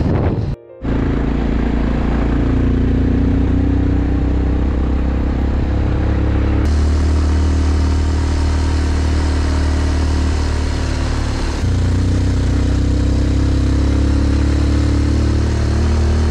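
Motorcycle engine running at a steady cruise while riding, with wind and road noise on the microphone. The sound cuts out briefly less than a second in.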